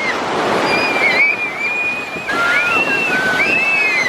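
Ocean surf washing steadily on a beach, with wind on the microphone. Several high, drawn-out calls ring out over the surf.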